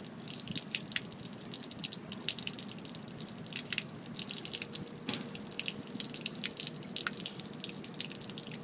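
Thin stream of water running out of a Mako Pro Skiff's stern drain fitting and splattering on concrete pavement, a steady trickle with many separate splashes of drops. It is water that leaked into the hull even though the live well and aerator were not in use, still draining without letting up.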